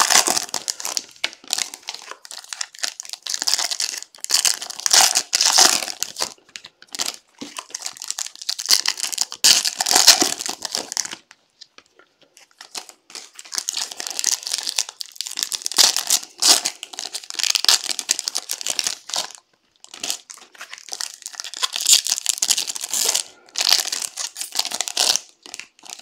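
Foil wrappers of 2021 Bowman's Best baseball card packs crinkling and tearing as they are opened by hand, in bursts with a short pause about eleven seconds in.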